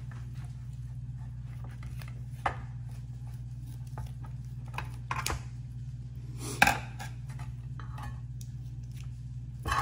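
A few scattered clicks and knocks of a kitchen knife and metal baking tray as a raw rack of lamb is handled and trimmed, the loudest clack about two-thirds of the way through, over a steady low hum.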